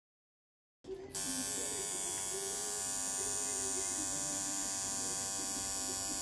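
Tattoo machine buzzing steadily as it runs the outlines of a tattoo, starting suddenly about a second in.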